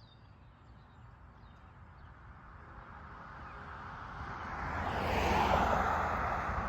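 Eastbound Norfolk Southern manifest freight train approaching: the rumble of its diesel locomotives grows steadily louder over several seconds.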